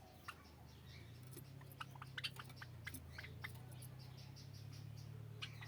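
Small cage birds giving short, high chirps and squeaks, scattered irregularly and busiest in the middle, over a steady low hum.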